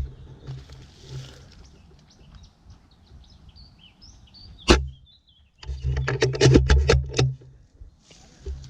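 A single sharp crack a little before the middle, then a quick, irregular run of about eight sharp clicks with low rumbling noise, over faint bird chirps.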